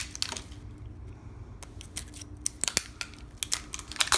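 Plastic layers of a toy surprise ball being opened and handled: scattered clicks and short crinkles, sparse at first and coming thicker near the end.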